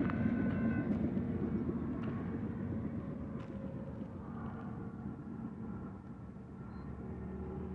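Rumble of a passing intermodal freight train fading away as it recedes. Near the end a steadier hum grows slightly louder.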